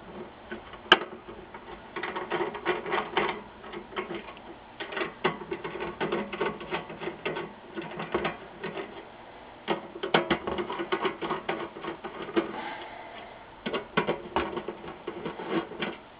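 Phillips screwdriver turning screws out of a circuit board held in a sheet-metal monitor chassis: several bursts of rapid clicking and scraping, one screw after another, with a single sharp click about a second in.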